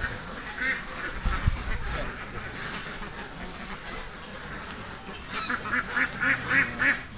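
A flock of domestic ducks quacking, with a quick run of loud quacks near the end. There is a brief low thump about a second and a half in.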